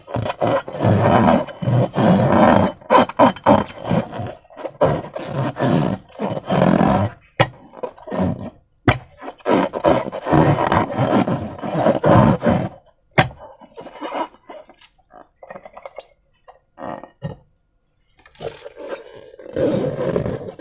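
Slime being squished and worked by hand, with irregular sticky squelching and scraping. There are a couple of sharp clicks midway, and the sound nearly stops for a moment near the end.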